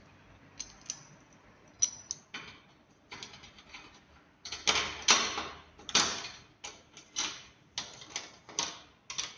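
Hand tools working on solar panel mounting racks as the panels are fastened down: scattered clicks and knocks, then from about four and a half seconds in a run of scraping strokes about one and a half a second.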